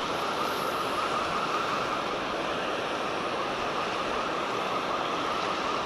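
Steady rush of water pouring through a dam spillway, an even roar with no breaks.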